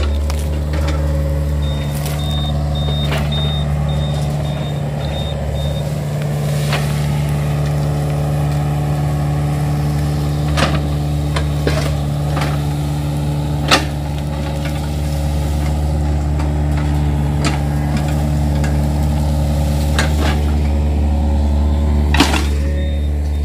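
Yanmar mini excavator's diesel engine running steadily under working load as the arm and bucket move, with a few sharp knocks and cracks scattered through as the bucket strikes ground and palm debris.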